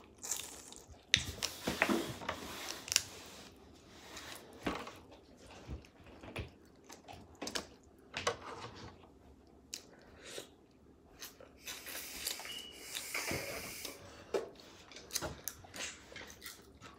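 Close-up eating sounds: crab clusters being picked apart by hand, their shells cracking, with chewing and crunching. Irregular sharp clicks and short crackles come every second or so.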